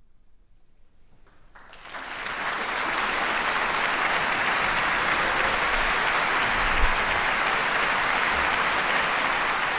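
Audience applauding at the end of an orchestral performance: a brief hush, then clapping breaks out about a second and a half in and quickly builds to steady, dense applause.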